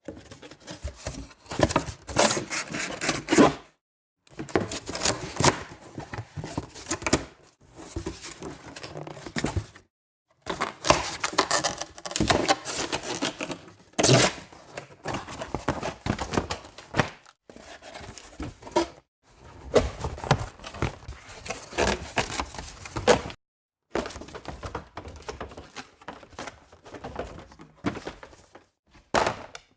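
Cardboard boxes being handled, torn open and crushed: repeated crinkling, tearing and thuds in separate takes broken by short silences, with one sharp hit about halfway through.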